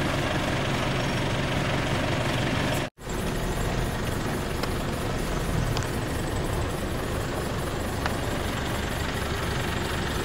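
A vehicle engine idling steadily. The sound cuts out for an instant about three seconds in, at an edit, then carries on.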